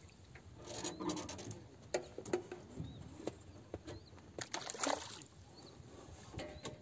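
Splashing and trickling water as a hooked fish is drawn up to the side of an aluminium boat, with a few sharp clicks and knocks.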